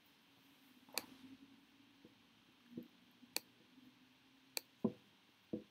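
Clicks from a laptop being handled, likely its keys or trackpad: about five separate sharp clicks and light knocks, spread apart, over a faint room hum.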